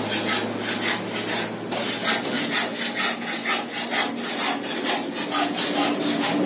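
Rasping strokes of a hand tool worked back and forth on exhaust pipe, quick and even at about three a second, with a short break about two seconds in.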